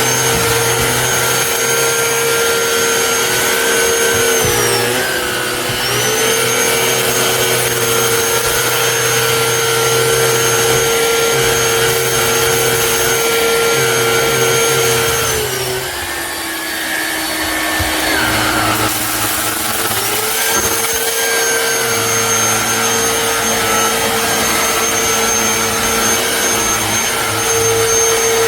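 Black+Decker POWERSERIES+ 20V MAX cordless stick vacuum running with a steady, loud motor whine. The pitch dips briefly about five seconds in, then sinks lower for about four seconds past the middle before rising back.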